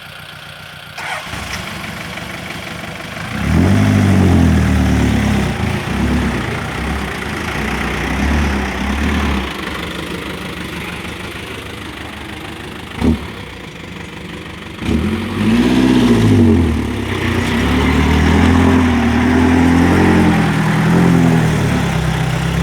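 Tractor engine working and revving up and down, its pitch rising and falling as the load changes, with a single sharp knock partway through.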